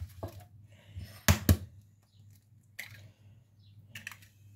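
An egg knocked sharply twice against the rim of a bowl to crack it, with lighter clicks and knocks of shell and bowl before and after.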